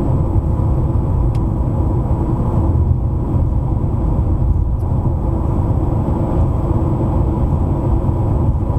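Steady road and engine noise of a car cruising at highway speed, heard from inside the cabin, a low even rumble throughout.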